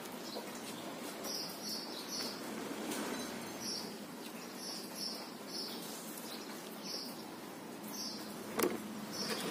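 Short high chirps repeated irregularly, roughly two a second, over a faint rustling haze, with one sharp knock near the end.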